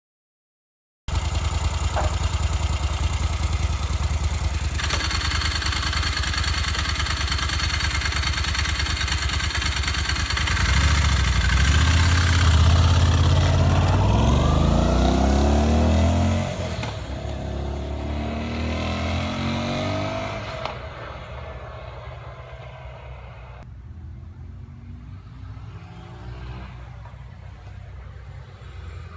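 Stock Moto Guzzi Griso 850 air-cooled V-twin running through its standard exhaust. It runs steadily, then from about ten seconds in it is revved, rising in pitch until about sixteen seconds in, and drops back as the throttle closes. It runs more quietly through the last third.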